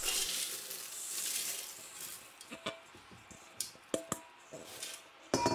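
A dry mix of hibiscus, olive leaves, rosemary, cinnamon and peppercorns pours into a stainless steel food-processor bowl with a rustling hiss over the first two seconds. Scattered light clinks and taps on the metal bowl follow, a couple of them ringing briefly, with a louder knock near the end.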